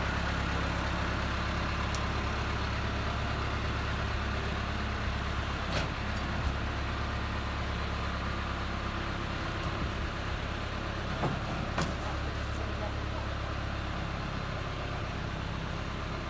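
A heavy vehicle's engine idling steadily, with a few light knocks over it.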